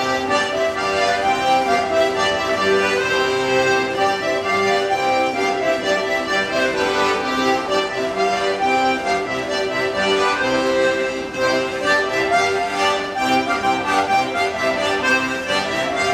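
Two accordions playing a traditional folk dance tune, with a steady held drone note under a continuous melody.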